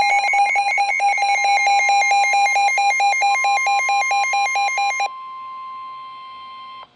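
Emergency alert warning tones: rapid alarm beeping at two pitches, about five beeps a second, over a steady tone. The beeping stops about five seconds in, and the steady warning tone carries on alone until it cuts off just before the end.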